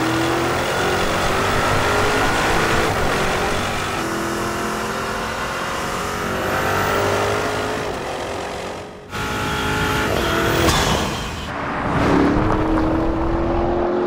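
Porsche Cayenne Turbo GT's four-litre twin-turbo V8 pulling hard under acceleration, its pitch climbing steadily. The sound breaks off briefly about nine seconds in, then drops and climbs again near the end.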